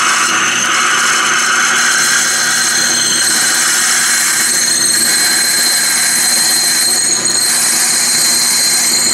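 Metal lathe running while a 31/64-inch twist drill cuts through a soft brass workpiece, opening up the pilot hole: a steady machine and cutting noise with a high steady tone.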